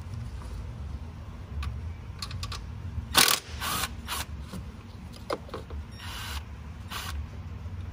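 Hand tools clicking and clanking against engine parts while working on a V8's intake manifold: scattered light clicks, a loud knock about three seconds in, and a few more short rattles later, over a low steady hum.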